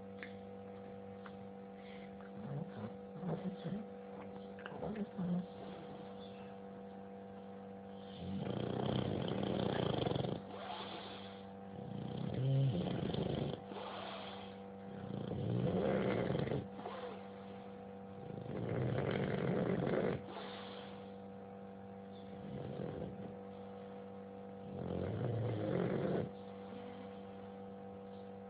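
Snoring: slow, rough breaths, five of them from about eight seconds in, each lasting a second or two and coming about every three to four seconds, over a steady electrical hum.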